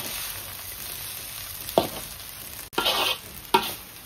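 Fried rice sizzling in a wok as a metal spatula stirs it, with a few sharp knocks of the spatula against the pan.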